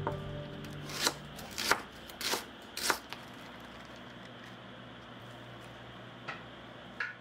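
Kitchen knife cutting herbs on a plastic cutting board: about five quick cutting strokes roughly half a second apart. Near the end there are a couple of faint taps.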